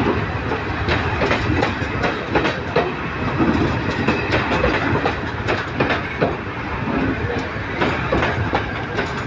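Class S10 diesel multiple unit passing at speed close by a platform: a steady rolling rumble of carriage wheels, with repeated clacks as the wheels cross rail joints.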